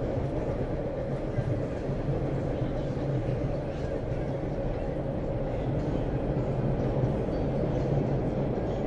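Steady rumble of a moving train heard from inside a carriage, with the low, even noise of the wheels on the rails.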